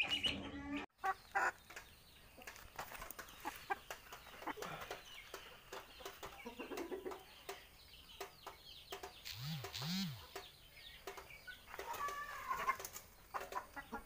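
Chickens clucking, with scattered short clicks and scratches.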